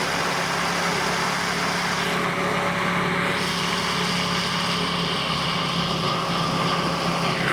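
Chevrolet 454 big-block V8 running steadily just after being cranked to life after years of sitting, fed from a gas jug by an electric fuel pump.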